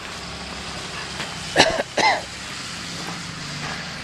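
Black German Shepherd giving two short barks close by, about half a second apart, each rising and falling in pitch.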